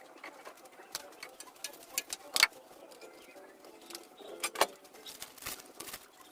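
Irregular light clicks and knocks, with two sharper knocks about two and a half seconds in and again about four and a half seconds in.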